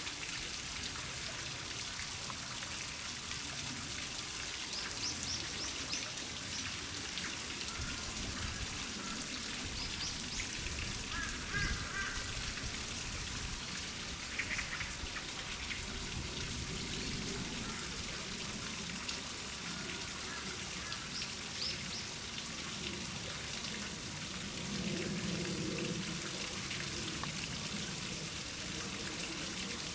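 Steady patter of rain, with a few faint, short high chirps scattered through.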